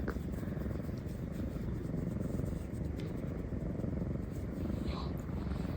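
Orange tabby cat purring steadily.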